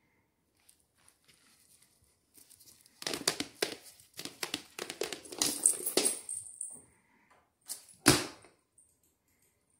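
Scuffling, rustling and knocking as a cat tussles with a large plush toy spider on a hardwood floor, a busy run of scrapes and taps for several seconds, then one sharp loud knock near the end.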